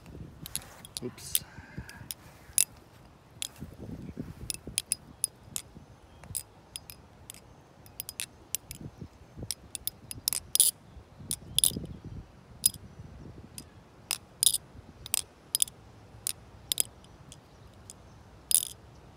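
Butterfly knife (balisong) being flipped: irregular sharp metal clicks and clacks, a few a second, as the handles swing around the pivots and knock against the blade and each other.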